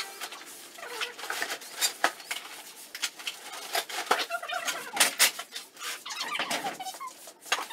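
Broom bristles sweeping over a gritty concrete floor and rubbish rustling into a woven plastic sack, an irregular string of short scrapes and crackles.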